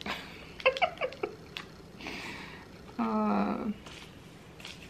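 A woman's short closed-mouth 'mmm' hum held at one pitch for under a second about three seconds in, with faint mouth clicks and a soft rustle before it.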